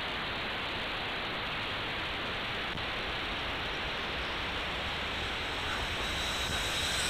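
Steady rushing noise, with the whine of a small quadcopter's propellers rising near the end as it flies low and close by.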